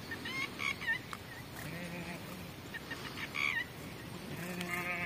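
Background animal calls: short chirps in the first second, then two longer pitched calls, one about two seconds in and one near the end.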